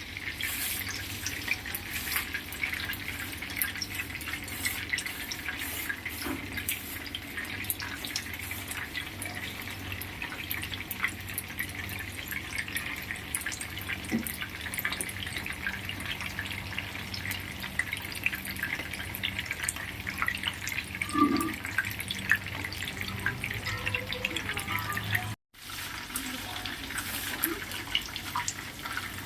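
Chicken pieces frying in hot oil: a steady sizzle with dense small crackles and pops.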